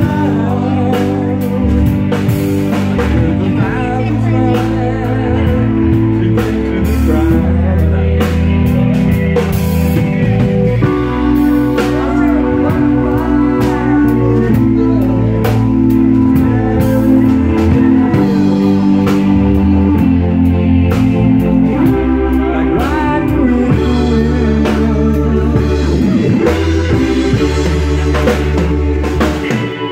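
Live blues-rock band playing: two-tier keyboards with the bass line played on keys, a drum kit with cymbals, and electric guitar, loud and steady.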